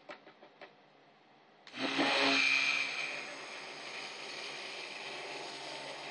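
Stick blender motor switched on a couple of seconds in and running steadily as it mixes cold-process soap batter in a plastic bucket, after a few light clicks.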